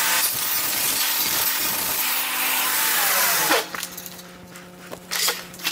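Table saw ripping a sheet of laminate along the rip fence. The cut ends about three and a half seconds in, and the saw then runs on unloaded with a quieter steady hum.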